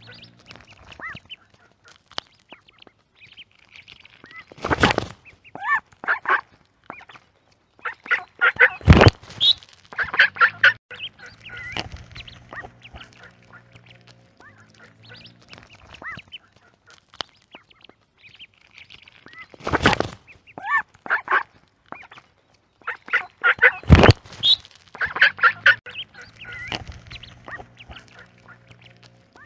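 Ducklings peeping and ducks quacking, with a few loud calls standing out; the same run of calls comes around twice, about fifteen seconds apart.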